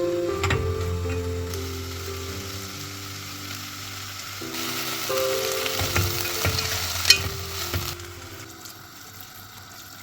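Food sizzling as it fries in a pan while being stirred, the sizzle growing louder about halfway through, with a sharp clink of a utensil about seven seconds in.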